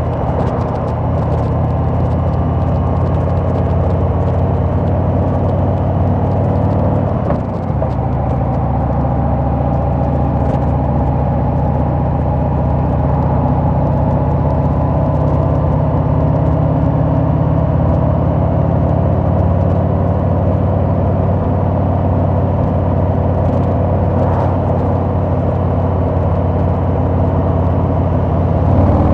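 Harley-Davidson Sport Glide's Milwaukee-Eight 107 V-twin running steadily while riding, with a brief dip about seven seconds in before it settles back to the same steady note.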